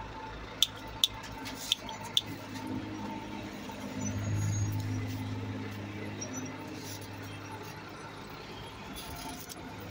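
Rear-loader garbage truck's diesel engine running nearby: a steady low rumble that swells for a few seconds, then eases off. A few sharp knocks come in the first couple of seconds.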